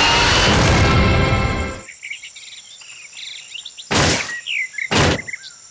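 Cartoon sound effects: a loud engine-like noise with a slowly rising whine fades out about two seconds in. Birds then chirp, and two heavy thuds land about a second apart.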